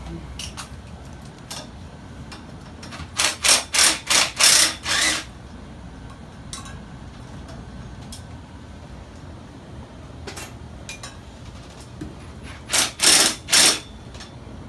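Tool work on heavy machinery: a quick run of about six short, loud mechanical bursts about three seconds in, and three more near the end, with a few lighter clicks in between.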